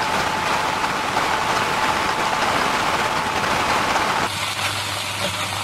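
Kimchi fried rice sizzling in a hot non-stick wok as it is stirred and tossed with a wooden spatula. About four seconds in the sizzle thins a little and a low steady hum comes in beneath it.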